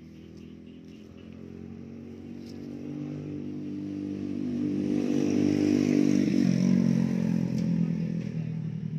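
A motorcycle passing by: its engine grows steadily louder to a peak about six seconds in, its pitch drops as it goes past, and it then fades away.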